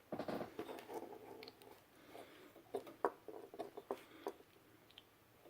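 Hands handling a soldering iron's cable and Hakko-type plug: rustling and scraping, then a few short light clicks and taps as the plug is fitted.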